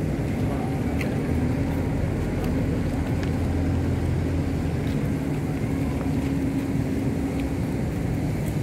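Steady low hum of a running engine or machine, holding one pitch throughout and growing a little stronger about a second in.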